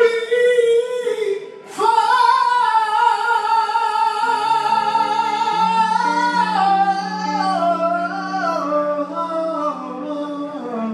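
A singer holds a long high note and then sings a stepwise falling run. Sustained low chords enter underneath about four seconds in and continue to the end.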